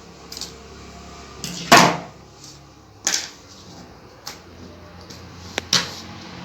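Wires of a USB charging cable being cut and stripped: a handful of short snips and scrapes, the loudest nearly two seconds in, with a sharp click near the end.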